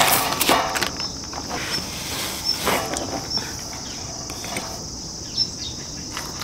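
Metal spoon scraping and clinking against a stainless steel cup as firm butter is mashed into sugar, with a few sharp scrapes near the start and again around three seconds in. A steady high insect trill runs underneath.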